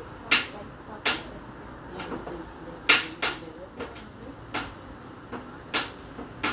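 Irregular sharp knocks and clacks of hard objects being handled and set down, about a dozen in six seconds, over a low steady background hum.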